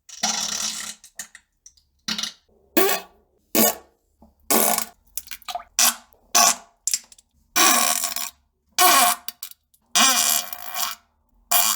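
A run of about a dozen short fart sounds with brief gaps between them, several sliding down in pitch.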